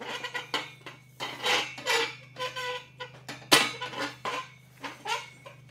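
Steel tubular table-saw stand parts clanking and knocking together as they are forced into a tight-fitting joint: a string of irregular metallic knocks and clinks, some ringing briefly, with one sharper hit past the middle.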